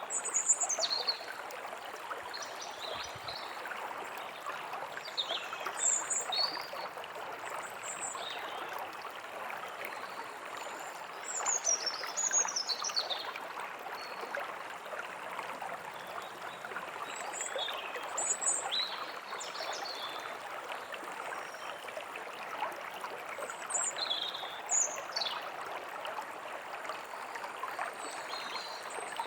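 A stream flowing steadily, with songbirds calling over it in short, high chirps and quick falling whistles, scattered through and bunched in a few flurries.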